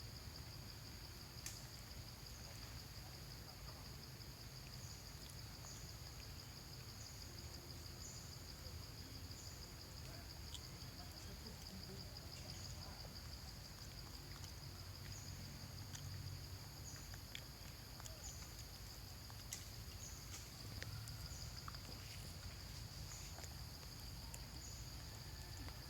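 Insects droning steadily in a high, unbroken tone, with a short higher chirp repeating roughly once a second over it, and a faint low rumble underneath.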